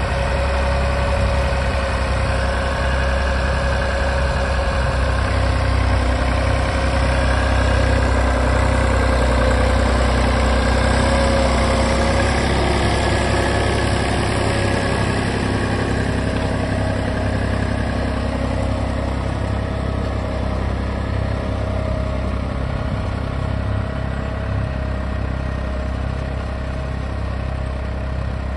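Massey Ferguson 355 Turbo tractor's diesel engine running steadily under load as it pulls a disc plough through the soil. It grows somewhat fainter over the last several seconds as the tractor moves away.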